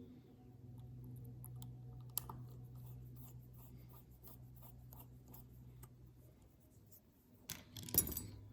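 Small objects being handled on a work surface: scattered light clicks and scratches, one sharp tick about two seconds in, and a brief louder rustle and clatter near the end, over a steady low hum.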